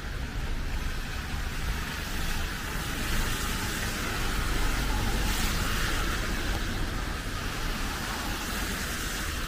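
Heavy rain with the hiss of car tyres on a wet road over a low traffic rumble; the hiss swells about halfway through as a vehicle passes.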